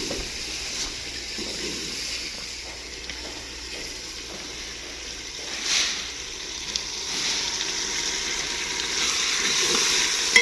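Potato curry sizzling in a cooking pot: a steady hiss that swells briefly about six seconds in and grows louder in the second half.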